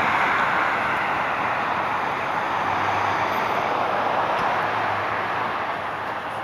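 Road traffic passing: a steady rush of vehicle and tyre noise that slowly fades away.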